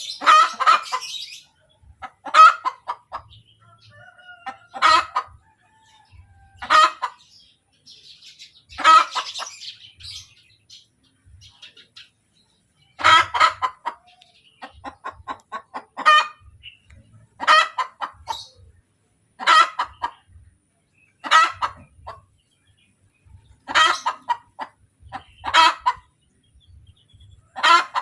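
Hen cackling after laying an egg, the egg song: runs of short clucks, each ending in a loud drawn-out squawk, repeated about every two seconds.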